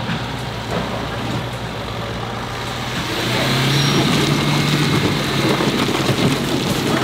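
Suzuki Ertiga's engine running under load as the car crawls over loose rocks and rubble, getting louder and rougher about three seconds in as it revs to climb. Stones crackle and grind under the tyres.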